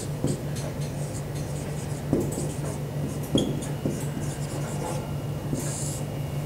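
Marker writing on a whiteboard: a run of short separate strokes as words are written and underlined, over a steady low hum.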